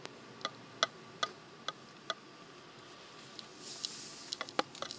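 Light, sharp ticks and clicks at uneven intervals over a faint steady hiss inside a moving car, with a short high hiss a little before the last cluster of clicks.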